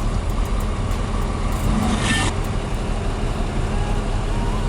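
A heavy tracked machine's diesel engine running steadily with a deep rumble. A short hiss comes about two seconds in.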